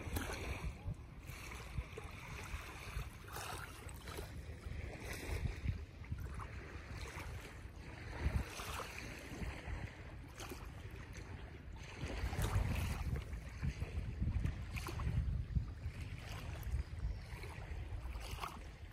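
Wind buffeting the microphone in gusts, picking up about two thirds of the way through, over small waves lapping at the shore.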